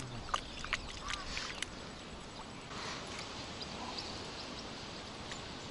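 Quiet open-lake ambience: a faint steady hiss, with a few light clicks in the first two seconds.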